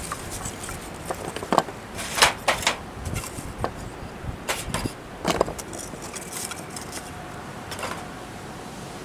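Irregular knocks, clinks and clatter of hard objects being handled, with several sharp strikes spread through it.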